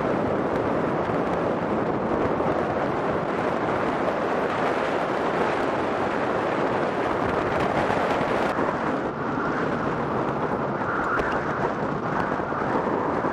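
Strong wind blowing across the camera microphone: a steady, loud rush of wind noise with a low rumble.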